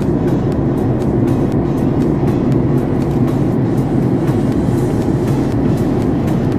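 Steady cabin noise of a Boeing 767 airliner in flight, a dense even rumble, with music that has a steady beat playing over it.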